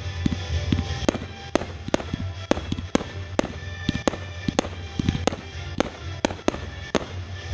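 Fireworks going off in quick succession, sharp bangs about two or three a second, with music playing under them.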